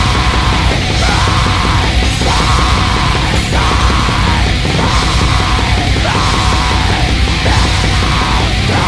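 Loud, dense experimental black metal recording.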